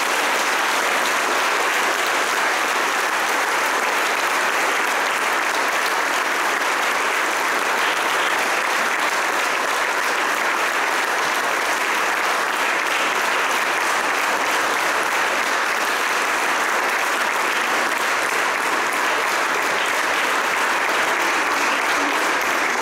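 Audience applauding in a large hall, a steady dense clapping that stops abruptly near the end.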